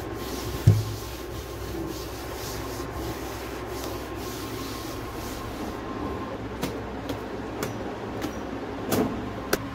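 Handling noise from a phone being moved about by hand: rubbing over a steady background hum, with a thump just under a second in and a few light clicks near the end.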